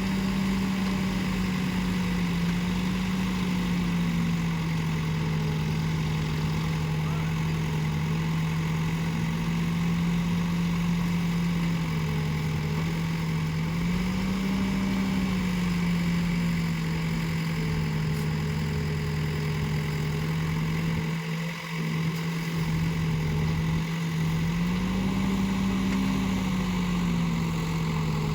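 Backhoe loader's engine running steadily, revving up slightly three times, with a brief dip about three quarters of the way through.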